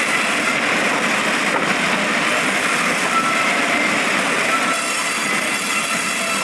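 Band sawmill running steadily, a continuous mechanical noise with faint high-pitched whines over it.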